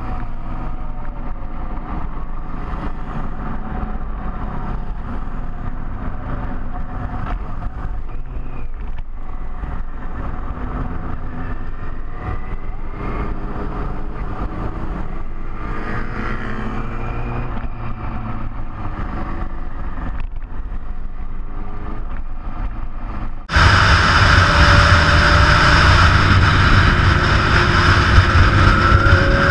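Big touring motorcycles riding, a steady low engine rumble with some rising and falling tones over it. About 23 seconds in the sound jumps abruptly much louder, with a wide rush of noise.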